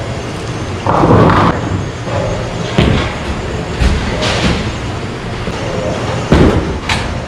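Bowling alley din: balls rolling with a low rumble and pins crashing, loudest about a second in and again near the end. There is a low thud about four seconds in as a Brunswick Vapor Zone Hybrid bowling ball is released onto the lane and starts rolling.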